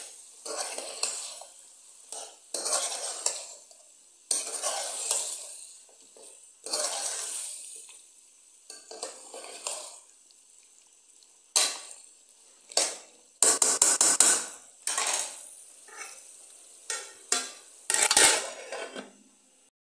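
Chicken and potato pieces being stirred and tossed in a pan of hot oil: repeated scraping strokes of a utensil against the pan over light sizzling, with a run of sharp clatters about two-thirds of the way in and another near the end.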